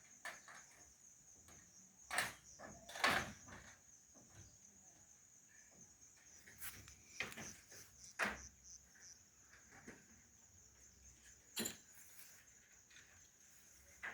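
Steady high-pitched insect chirring, typical of crickets, with a scattering of sharp knocks and clicks throughout; the loudest come about two and three seconds in.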